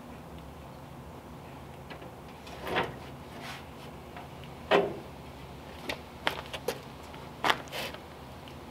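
Metal knocks and clunks as a radiator is handled and worked into place in a car's front end: a soft knock about three seconds in, a sharper clunk near five seconds, then a quick run of clicks and knocks.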